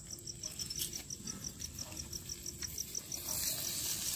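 A cricket chirping in a steady string of short high pulses, about five a second. Soft scraping and a few light taps from a stick being worked in the coals of a clay stove grow louder near the end.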